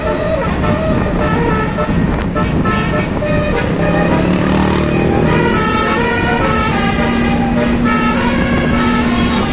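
Bus telolet (Basuri) horn playing a tune of short stepped notes over steady vehicle and road noise.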